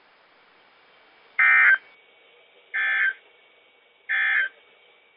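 Three short bursts of warbling Emergency Alert System (SAME) data tones from a NOAA Weather Radio broadcast, about 1.3 s apart: the end-of-message signal that closes the alert. A faint steady high tone and hiss sit underneath.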